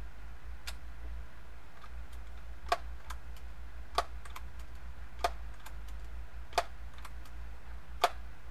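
Daisy PowerLine 901 multi-pump air rifle being pumped for the next shot: five sharp clicks about one and a third seconds apart, each with a fainter click between, as the pump lever is worked open and shut.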